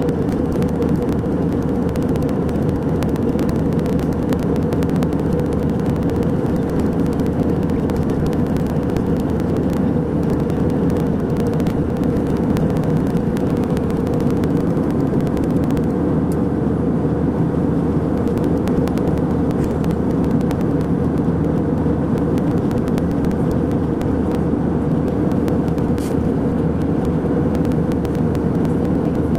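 Steady low rumble of a jet airliner's cabin in cruise flight: engine and airflow noise heard from a window seat.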